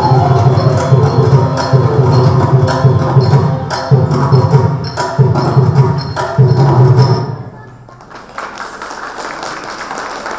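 Classical Indian dance accompaniment with a drum beating strongly under the melody. It stops abruptly about seven and a half seconds in, leaving a quieter background hubbub.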